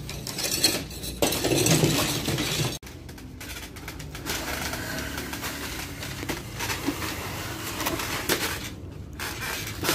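Wooden slatted crates knocking, rattling and scraping as they are lifted down from a truck bed by hand and set on the ground. The noise breaks off abruptly about three seconds in, then picks up again a little quieter.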